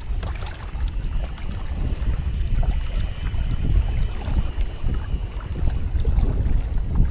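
Wind rumbling on the microphone over water splashing and lapping against a sail-driven kayak's hull as it moves along.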